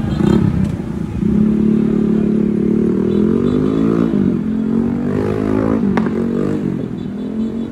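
Motorcycle engine revving, its pitch rising and falling several times, with a sharp click about six seconds in.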